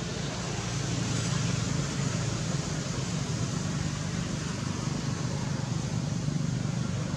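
Steady low hum with an even hiss over it, a little louder from about a second in, with no distinct calls or knocks.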